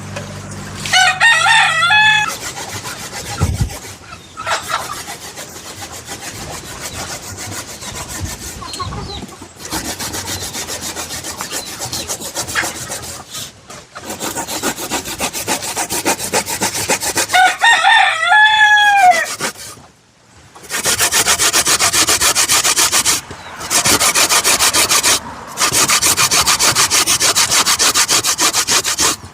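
Dry coconut being grated by hand: rapid rhythmic rasping strokes with short pauses, loudest in the last third. A rooster crows twice, about a second in and again just past the middle.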